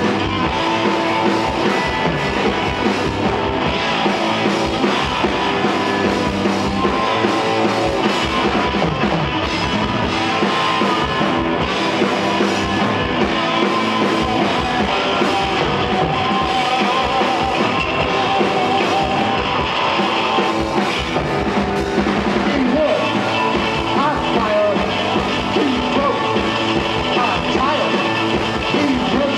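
A rock band playing live, with a drum kit driving a steady, loud beat under the full band.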